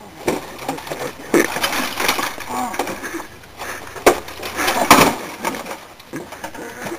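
An old wood-cabinet CRT television being heaved and thrown onto the ground: a series of heavy knocks and cracking thuds, the loudest two about four and five seconds in.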